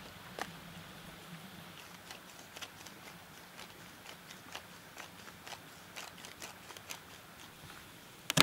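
Food preparation on a wooden cutting board: light, irregular clicks and taps of hands and utensils, then a sharp knock of a knife on the board near the end.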